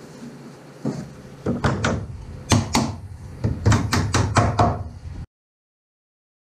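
Wood knocking on wood: a dozen or so sharp, irregular knocks as a wooden brace is set and tapped into place under a thwart in a plywood boat hull, then the sound cuts off suddenly about five seconds in.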